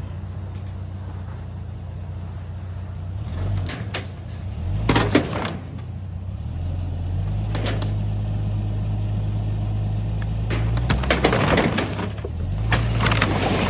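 An engine running, its speed rising and falling several times, with sharp cracking and clattering like wood and metal debris breaking, about five seconds in and again in a busy run near the end.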